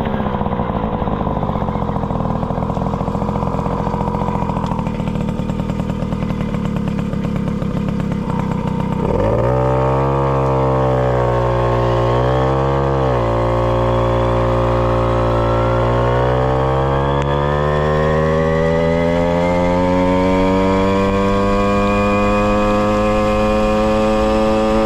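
Tomos XL 45 moped's 49 cc single-cylinder two-stroke engine with a Tecno Bullet expansion exhaust, running under way. About nine seconds in its pitch jumps up and holds with a waver, drops back a few seconds later, then climbs steadily as the moped accelerates.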